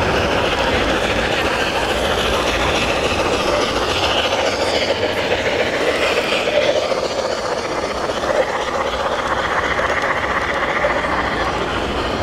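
LGB garden-scale (1:22.5) model train, a small steam locomotive hauling coaches, running along the layout's track with a steady mechanical running sound.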